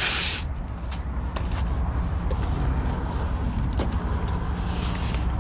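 A motor vehicle's engine running steadily with a low hum, and a few faint clicks over it.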